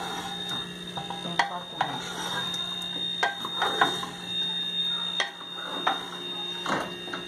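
A wooden spoon stirring meat in an aluminium pressure cooker, knocking against the pot about six times at uneven intervals. A steady high thin whine and a low hum run underneath.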